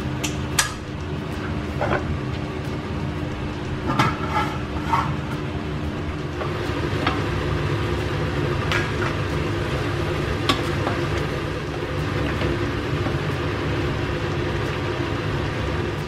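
Cooking at a stove: a wooden spoon stirring in a stainless steel pot and a metal pot lid being handled, giving scattered sharp clinks and knocks over a steady low rumble.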